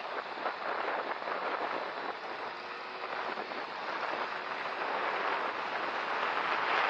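Wind rushing over the microphone with road noise from a Yamaha Mio i 125 scooter under way, growing steadily louder as it speeds up.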